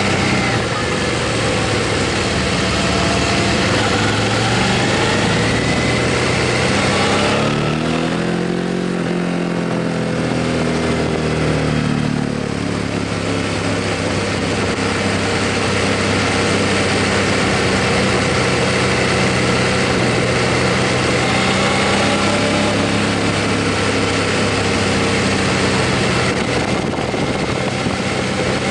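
Motorcycle engine running while riding, with wind rushing past. Between about eight and twelve seconds in, the engine note drops away and then rises again as the bike slows and speeds back up.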